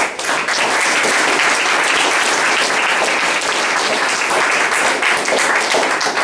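Audience applauding steadily, starting all at once.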